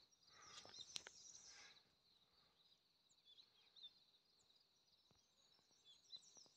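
Faint outdoor ambience: a steady high-pitched insect drone with scattered short bird chirps. A brief rustling noise comes about half a second in.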